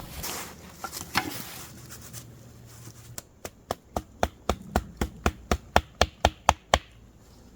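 Rapid hammering: about fourteen quick, evenly spaced blows, roughly four a second, beginning about three seconds in, after a couple of single knocks near the start.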